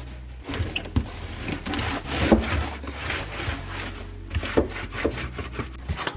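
Household items being handled and set down, with a run of irregular light knocks and clatters and some rubbing and rustling.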